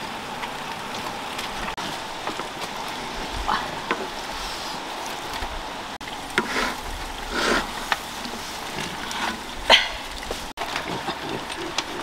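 Catfish and corn cooking over a wood fire in a wide metal pan, a steady sizzling hiss, with a few short rustles and knocks as corn and lemongrass stalks are laid on.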